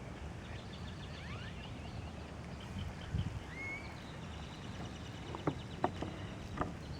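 Outdoor ambience: a steady low rumble of wind on the microphone with faint bird chirps, and a few sharp clicks in the last couple of seconds.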